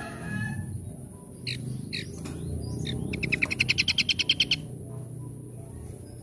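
A small songbird calling: a few short, falling chirps, then a fast, even trill of about a dozen notes a second lasting about a second and a half, the loudest sound here. Steady low background noise runs underneath.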